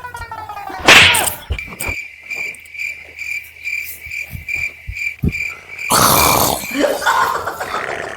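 Crickets chirping in an even pulse, about three chirps a second, from a couple of seconds in until about six seconds. Loud snores break in about a second in and again near six seconds.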